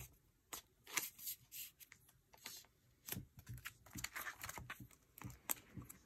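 Plastic binder pocket pages rustling and crinkling as photocards are handled and slid into them, in short scattered rustles with light taps.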